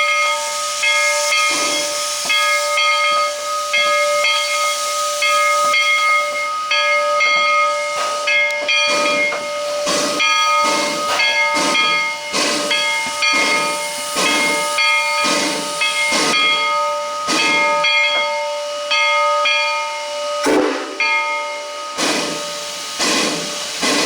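Bridgton and Saco River #7, a two-foot-gauge steam locomotive, hissing steam with a steady ringing tone over the hiss. From about eight seconds in it gives sharp exhaust puffs, a little under a second apart, as it works.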